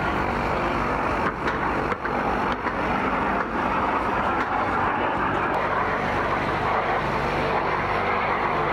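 Steady jet noise from a pair of BAC Strikemaster jet trainers, each powered by a Rolls-Royce Viper turbojet, flying overhead in formation. It is a continuous rushing sound with a faint low hum beneath it.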